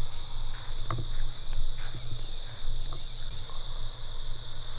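Steady high-pitched chorus of crickets trilling without a break, over a low steady rumble, with a few faint ticks.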